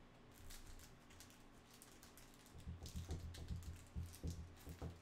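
Plastic wrapper of a trading-card cello pack crinkling and crackling as it is torn open and handled. From about halfway through come many soft, quick thumps and clicks.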